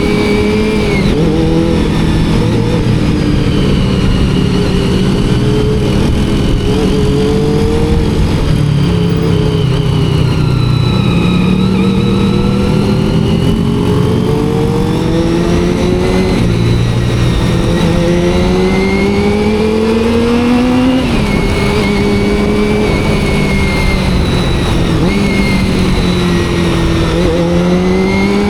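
Honda CBR400RR's carbureted inline-four engine revving up and easing off while riding, its pitch climbing and falling several times, with a sudden drop about two-thirds of the way through.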